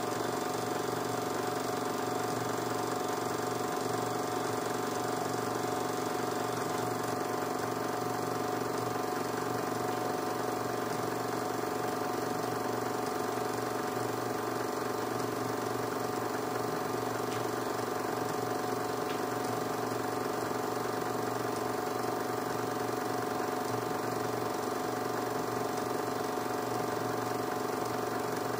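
Film projector running steadily, a constant mechanical whir with a fixed hum.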